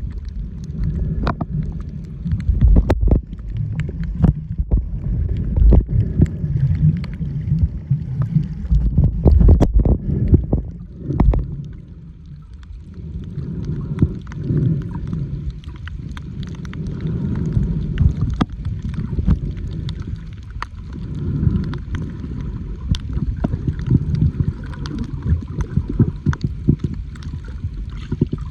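Wind buffeting the microphone: an uneven low rumble that swells and drops, with scattered sharp clicks and ticks throughout.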